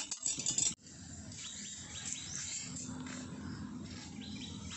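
A wire whisk clicks against a steel bowl for under a second, then an abrupt change to steady outdoor background with birds chirping in short quick groups, twice.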